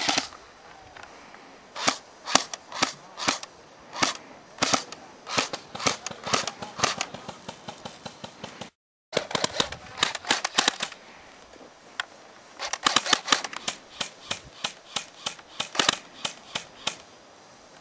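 Airsoft guns firing: many sharp, cracking shots, some single and some in quick bursts, with a brief total silence about halfway through.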